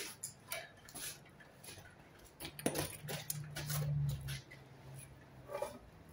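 Scattered light clicks, knocks and small metallic clinks as a circular saw is picked up and set on a length of timber, ready to cut but not yet running. A low hum swells for about a second and a half near the middle.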